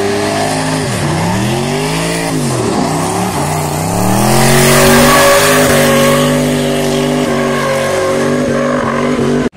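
Drift car's engine revving hard in repeated up-and-down bursts as it approaches, then held at high revs while the rear tyres spin and screech as it slides past sideways, loudest about four to six seconds in. The sound cuts off abruptly at the very end.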